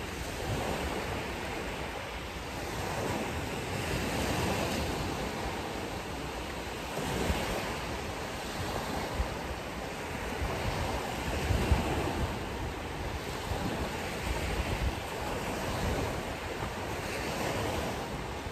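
Ocean surf: waves breaking and washing up the shore in slow swells, with gusts of wind rumbling on the microphone a few times, loudest about two-thirds of the way through.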